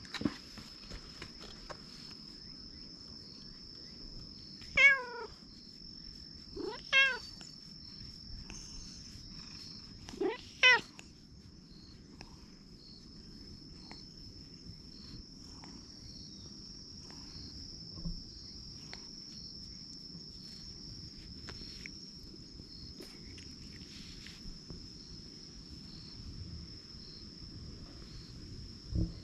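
Stray cat meowing three short times, about five, seven and ten seconds in, over a steady high insect drone.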